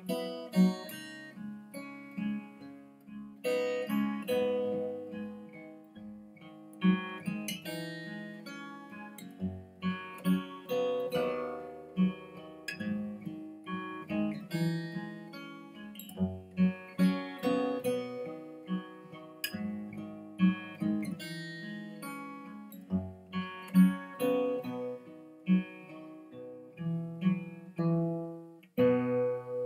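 Solo acoustic guitar playing an arranged piece: plucked notes and chords, each ringing and dying away, with a chord struck and held near the end.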